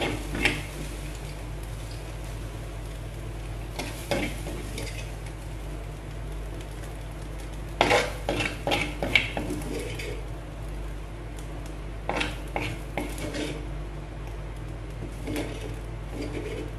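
A metal spoon scraping and scooping egg-and-microgreen stir-fry out of a clay pot and knocking it into a stainless steel bowl. It comes in five short bursts of scrapes and clinks, the busiest about eight seconds in, over a steady low hum.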